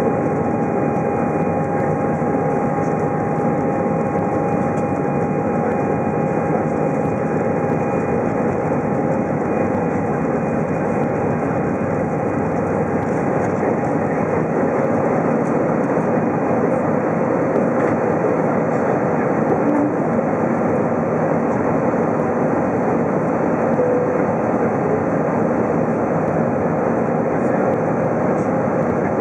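Airbus A320 jet engines at takeoff thrust heard from inside the cabin: a loud, steady rush with faint steady high tones, through the takeoff roll and into the climb after liftoff.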